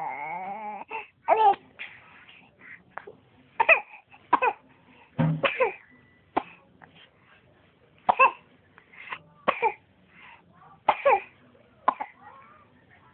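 A small child coughing again and again in short separate spurts, about ten of them spread across the few seconds, some with a brief voiced whimper in them.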